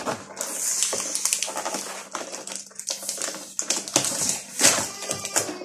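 Packaging rustling and crinkling, with many quick irregular clicks and snaps, as a boxed solar light is unwrapped by hand.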